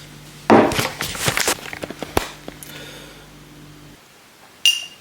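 Kitchen handling sounds while making a coffee: a cluster of knocks and clatter in the first two seconds over a low steady hum that stops about four seconds in, then a single ringing clink near the end.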